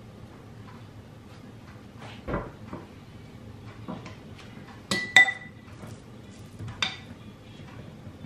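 A metal spoon clinking against a glass mixing bowl as dumpling filling is scooped out. There is a dull knock about two seconds in, then two quick ringing clinks about five seconds in, which are the loudest, and another clink near seven seconds.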